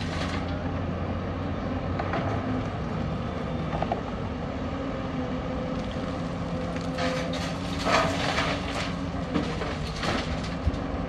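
Hyundai crawler excavator's diesel engine running steadily while its bucket digs and loads rock and soil, with bursts of rock clattering and scraping, the loudest about two-thirds of the way through and a sharp knock near the end.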